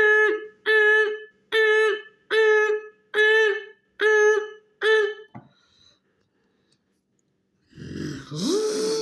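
A person's voice imitating a vehicle's reversing beeper: seven evenly spaced hummed beeps, a little under one a second, each dipping in pitch as it ends. After a short pause, a hummed tone glides up and holds steady near the end.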